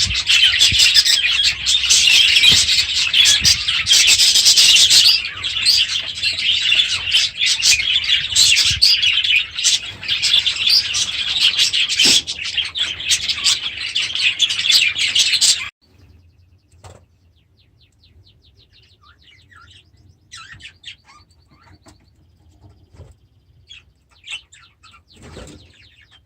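Many budgies chattering and chirping in a dense, continuous chorus. About two-thirds of the way in it cuts off abruptly, leaving only faint, scattered chirps.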